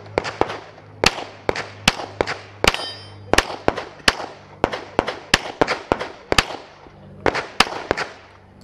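Semi-automatic pistol fired in rapid strings of shots, many in quick pairs, each shot trailing off in a short echo.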